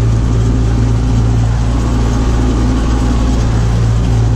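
Tractor engine running steadily and loudly, a constant low drone with no change in speed.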